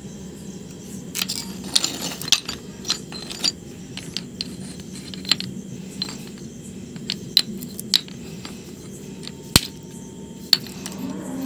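Irregular sharp clinks and taps of hard white stone blocks knocking against one another as they are handled, about a dozen clear ones spread through, over a low steady hum.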